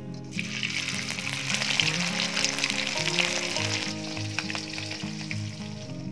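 Half-dried salted scad (ikan layang) going into hot oil in a wok and sizzling hard. The sizzle starts just after the fish goes in and eases after about four seconds. Background music plays underneath.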